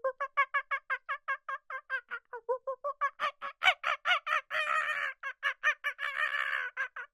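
Domestic fowl calling in a rapid, even series of short calls, about six a second, growing louder and denser about halfway through.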